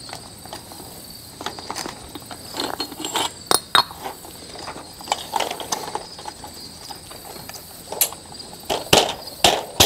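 Metal parts of a garage door torsion spring assembly clicking and clinking as they are handled and fitted together by hand, the winding unit being clipped onto the torsion tube. Scattered sharp clicks, several close together near the end.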